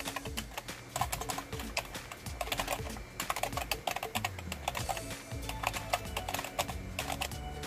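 Typing on a computer keyboard: quick, irregular key clicks in short runs. Background music plays underneath.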